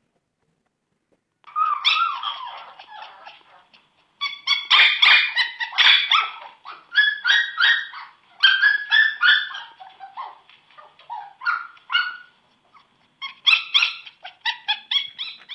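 Corgi puppy giving high-pitched little barks and yips in quick runs with short pauses, starting about a second and a half in.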